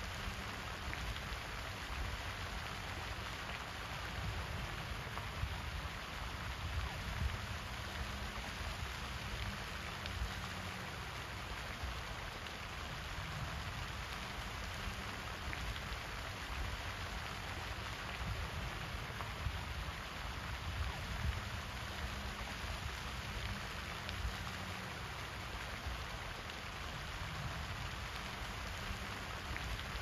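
Pond fountain's water jet falling back onto the water: a steady splashing hiss, with an uneven low rumble beneath it.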